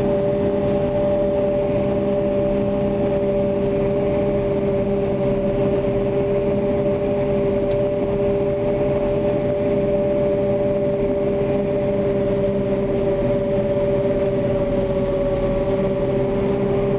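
Maize harvesting machinery running steadily: engine rumble under a constant two-note whine that does not change pitch.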